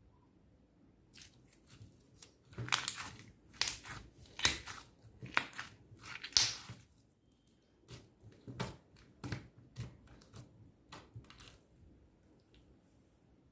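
Clear slime being squished and worked by hand, a string of crackly squelches and pops, loudest in the first half and dying away after about eleven seconds.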